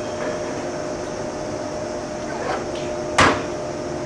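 Steady hum from the onboard equipment of a stationary JR 183 series electric express train, with one sharp knock about three seconds in.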